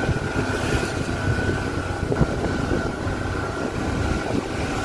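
Engine and road noise heard inside a moving Suzuki hatchback taxi: a steady low rumble with a thin steady high tone running through it.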